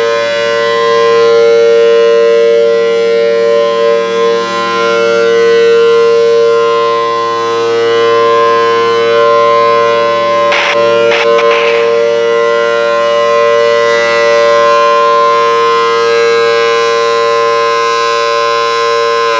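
Federal Signal Thunderbolt 1000BTSC 4/5 tornado siren sounding the steady Alert signal: a loud held chord of several tones whose loudness swells and fades gently. A few brief noises cut across it about ten to twelve seconds in.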